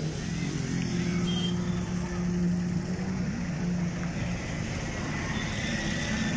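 School bus engine running steadily as the bus drives slowly past at close range, over general road traffic noise.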